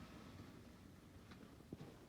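Near silence: faint room tone, with a few faint light clicks and a soft knock near the end.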